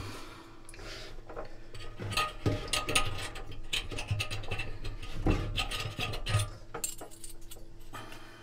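Small metal bearing parts clinking, tapping and scraping against the hub and stainless drum back of a Fisher & Paykel dryer as they are handled and fitted, in scattered irregular knocks.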